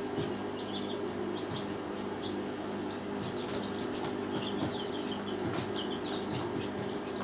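Many young chicks peeping in short, high chirps over a steady machine hum, with a few sharp clicks.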